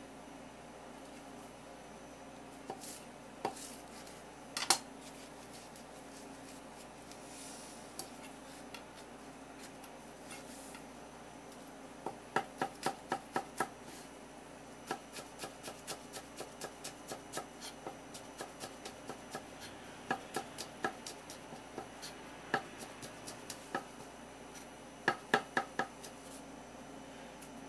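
A kitchen knife chopping greens on a wooden cutting board: a few scattered knocks at first, then from about twelve seconds in, runs of quick, even chops at about three to four a second with short pauses.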